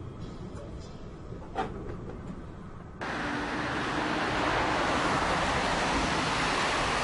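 A low rumble with one short knock, then about three seconds in a sudden switch to the louder, steady rushing noise of a twin-turboprop airliner of the Bombardier Dash 8 type passing low on approach, with a faint steady hum under it.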